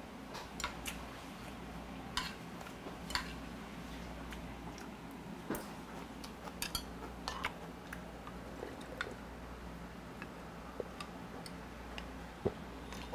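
Metal chopsticks and spoon clicking against a soup bowl while eating: a dozen or so scattered light taps over a low steady room hum.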